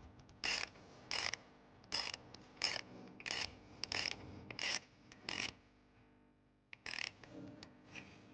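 Ratchet and 15 mm socket tightening the nut on a car battery terminal: about eight short rasping clicks of the ratchet's back-strokes, one every two-thirds of a second, then a pause and a few weaker ones near the end.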